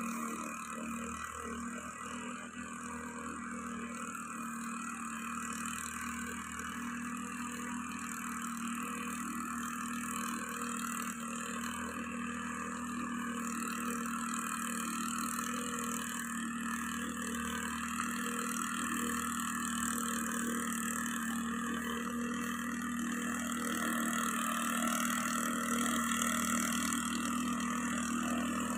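Small two-stroke engine of a backpack mist blower running steadily while it blows granular fertilizer out through its tube. It grows gradually louder as the blower comes closer.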